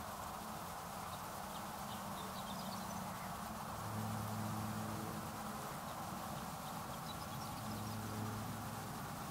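Steady outdoor background hiss with a low hum that swells twice, and a few faint, high, short bird chirps in two brief series.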